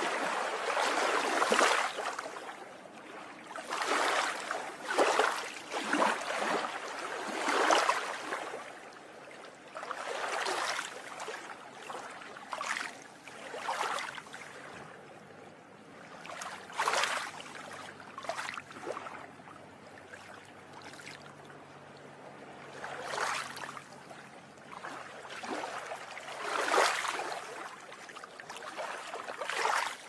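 Sea waves breaking and washing up over a seawall onto the promenade: a surge of rushing, hissing water every few seconds, calmer for a few seconds around the middle.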